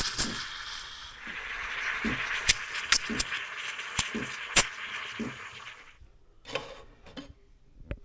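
SUMSATY espresso machine's steam wand hissing in a stainless steel pitcher of milk, frothing it, with scattered sharp clicks. The hiss stops about six seconds in, followed by a few separate knocks.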